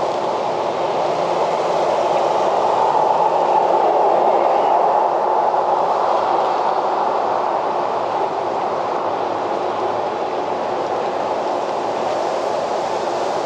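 Steady wind rushing across the microphone, swelling slightly a few seconds in.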